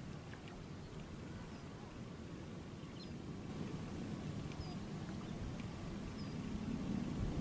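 Quiet outdoor ambience at the water: a steady low rumble, growing a little louder near the end, with a few faint, short, high chirps scattered through it.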